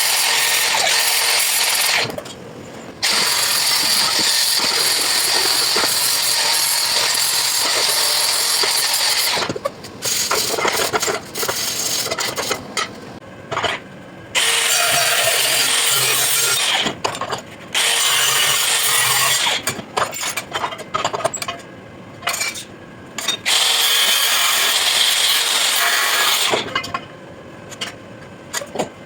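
Power tool working on metal in long, loud, hissing passes, broken by short pauses and choppier stretches, going quieter near the end.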